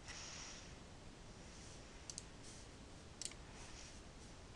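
A few faint clicks at a computer over quiet room hiss: a quick pair about two seconds in and one more about a second later.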